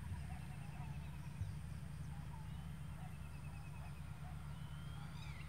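Forest ambience of wild birds calling: scattered short chirps, two rapid trills and a whistle near the end, over a low steady rumble.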